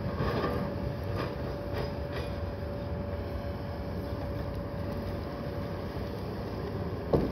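Diesel engines and hydraulics of two hoe chucker log loaders working, a steady engine drone with a steady whine over it. Logs knock and clatter a few times in the first couple of seconds, and one sharp knock comes just before the end.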